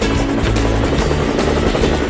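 Cartoon helicopter sound effect: a steady rotor chop from a toy helicopter flying close, over upbeat background music.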